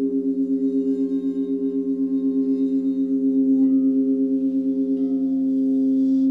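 Crystal singing bowls ringing together in several long, steady tones, the strongest of them wobbling with a quick, even pulse.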